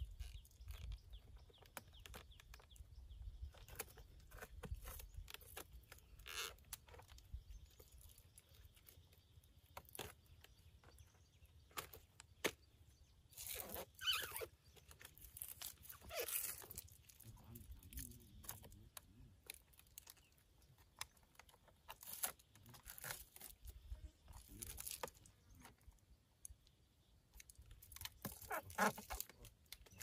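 Faint scattered clicks and rustles, with a few louder bursts about halfway through and again near the end.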